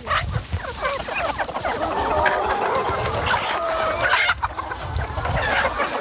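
A flock of chickens clucking together, many short calls overlapping without pause, as the birds are called to feed.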